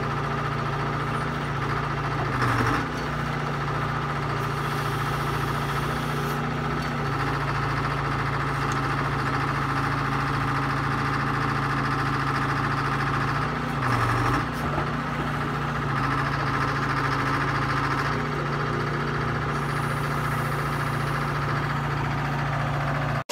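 Hy-Hoe tracked excavator's diesel engine running steadily, with two short spots about two and a half seconds and fourteen seconds in where its pitch dips and it gets louder as the hydraulics take load.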